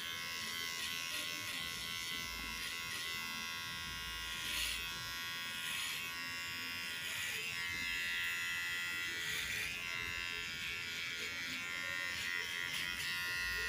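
Cordless electric hair clipper running steadily while cutting a boy's short hair. Its tone shifts a little about halfway through as the blade moves over the head.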